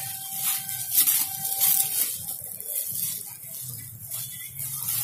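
Clear plastic packaging bag crinkling and rustling in irregular crackles as a blouse is pulled out of it and the plastic is crumpled, loudest about a second in.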